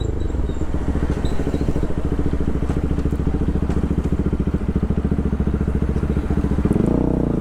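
Bajaj Pulsar RS200's single-cylinder engine through an aftermarket Akrapovic full titanium exhaust, running steadily at low revs with a rapid, even throb while the bike is held slow. The revs rise briefly near the end.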